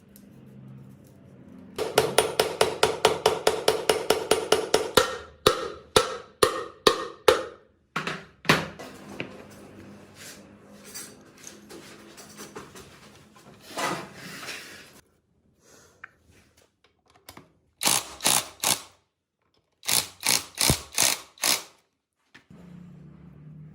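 Hammer striking metal in runs of ringing blows, first rapid at about eight a second, then slower single strikes, with two short bursts of blows near the end.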